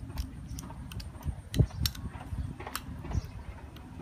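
A spoon clicking and scraping against a small bowl as a thick paste is stirred, in irregular light ticks over a low steady rumble.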